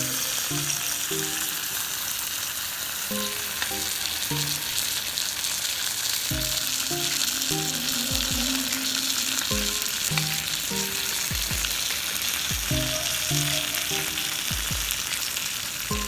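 Sauce sizzling and hissing steadily on a hot iron sizzler plate, poured over chicken, rice and vegetables.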